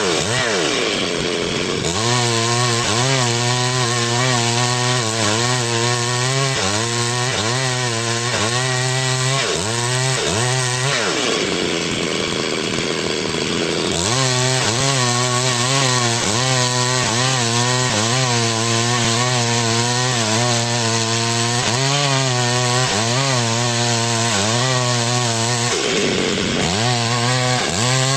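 Chainsaw running and cutting wood, its engine pitch wavering about once a second as it takes and eases the load. The pitch sinks deeply and climbs back three times: about a second in, around the middle, and near the end.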